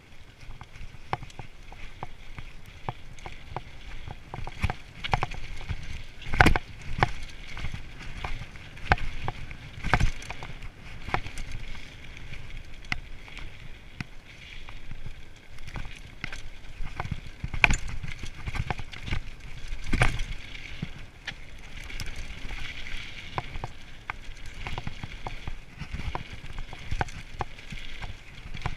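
Mountain bike ridden fast down a rough dirt trail: a constant clatter of knocks and rattles as the bike goes over bumps and roots, with tyres running on dirt. Heavier thuds stand out about six and a half, ten, eighteen and twenty seconds in, where the bike lands hard on bumps.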